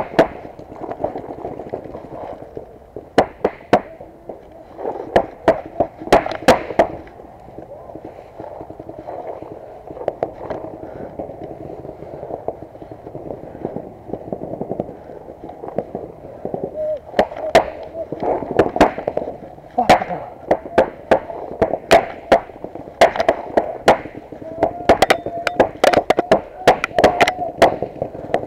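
Paintball markers firing, sharp pops in quick bursts of several shots, thickest in the second half.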